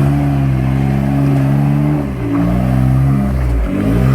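Off-road 4x4's engine revving: the pitch climbs at the start and holds for about two seconds, dips, rises again, then drops and climbs once more near the end.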